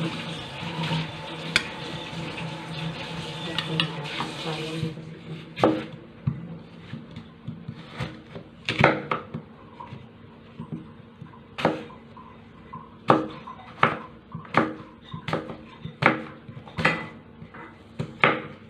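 Kitchen knife chopping an apple on a wooden cutting board: a run of sharp knocks, a few at first and then about one every three-quarters of a second through the second half. A steady hum and hiss runs through the first five seconds and then stops.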